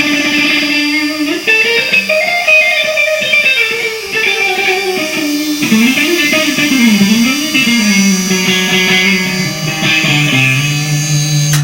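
Guitar playing a plucked Spanish-style melody, with a steady high-pitched tone sounding underneath it.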